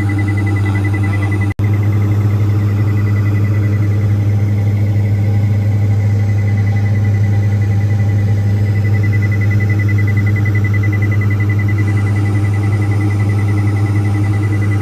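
Steady drone of the Diamond DA42-VI's one remaining Austro AE300 turbodiesel and propeller, heard inside the cabin while the aircraft flies single-engine after the left engine failed. A thin, steady high tone sits above the drone, and the sound breaks off for an instant about one and a half seconds in.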